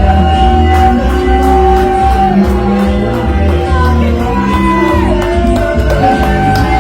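Wrestler's entrance music playing loudly in an arena: a song with a singing voice over a steady beat, with shouts from the crowd.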